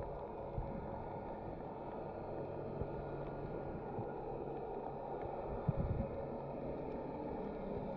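Muffled underwater rumble and hiss picked up by a submerged camera, dull and without highs, with a few soft knocks about six seconds in.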